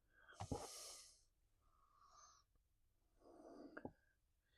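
Near silence broken by two short breathy exhales close to the microphone, the second ending in a small tap.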